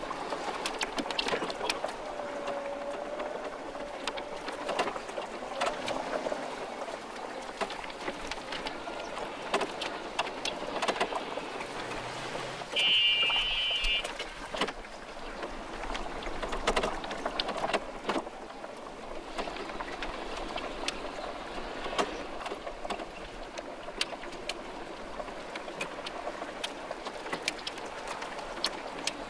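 Fast-forwarded outdoor ambience: a steady hiss dotted with many rapid clicks and ticks, and a short, loud, high chirping tone about thirteen seconds in.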